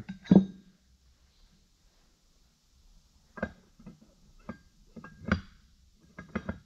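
Steel parts of a truck transmission's range synchronizer clinking and knocking together on a workbench as the hub is worked down over the synchronizer pins and springs. A loud metallic clank with a brief ring comes just after the start, then scattered clicks and knocks, with a quick run of them near the end.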